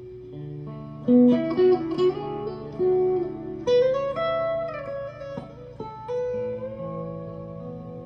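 Fender '62 reissue Stratocaster with Ancho Poblano custom shop pickups, played through an amp: picked single-note lead phrases and double-stops, with string bends sliding notes up in pitch about four seconds in and again near the end.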